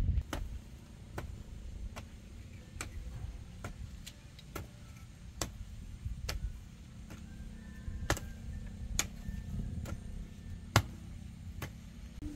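A series of sharp ticks or taps repeating a little faster than once a second, over a low rumble.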